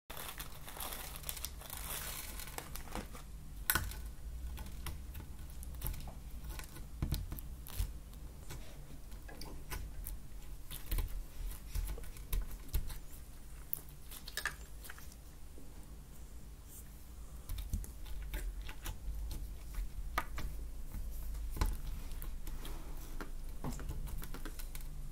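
Small plastic sachets crinkling and rustling in the fingers, with scattered light clicks as confetti sprinkles are tipped onto clear slime and a glass tabletop, over a steady low hum.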